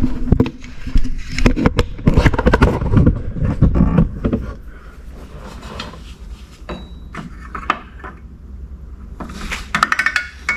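Hand work on a drum-style parking brake: the shoe hold-down spring cup is pushed in and twisted off its pin, with dense metal scraping and clicking for the first few seconds, then scattered clicks and a short run of light metallic clinks near the end.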